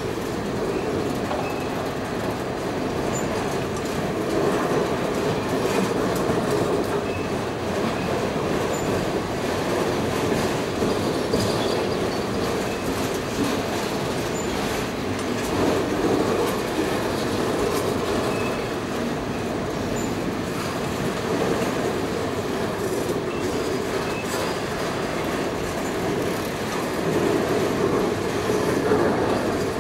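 Freight train of auto carrier railcars rolling past with a steady rumble, its wheels clicking over the rail joints and now and then giving a faint brief squeal.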